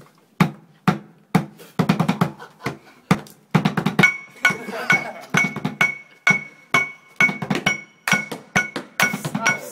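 An improvised percussion beat banged out on locker-room objects, with sharp knocks about twice a second and quicker strokes between. From about four seconds in, a bat joins the beat, each strike ringing with a clear metallic ping.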